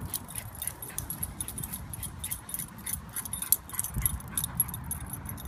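Light metal jingling, quick and uneven throughout, over a low rumble.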